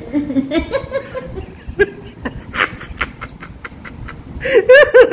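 A woman laughing: short snickers and breathy sounds at first, then loud, quick repeated bursts of laughter near the end.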